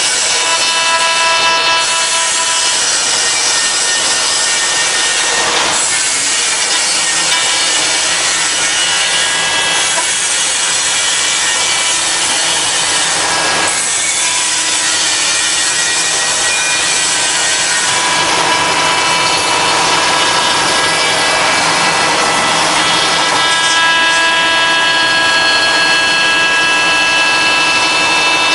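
5-axis CNC router cutting wood: a steady high spindle whine over continuous cutting noise, its tone shifting every several seconds as the tool moves through the work.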